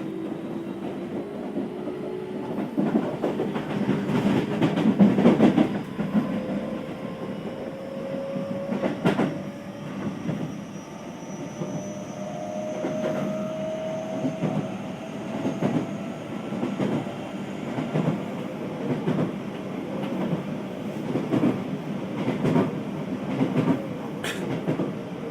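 Keio new 5000 series electric train heard from inside the passenger car. The Hitachi SiC inverter and traction motor whine climbs steadily in pitch as the train accelerates, and the wheels clack over rail joints in a regular rhythm.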